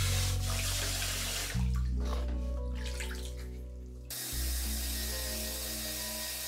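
Water spraying from a handheld shower head into a plastic bath tub, a steady hiss that thins out for about two seconds midway, over background music with a low bass line.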